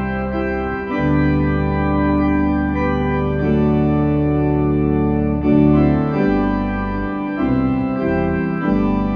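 Organ playing slow sustained chords over held bass notes, the chords changing every second or two.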